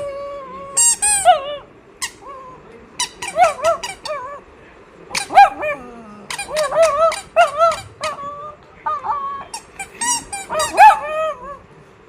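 A dog whining and giving squeaky yips: many short, high calls that bend up and down in pitch, coming in clusters with brief pauses between.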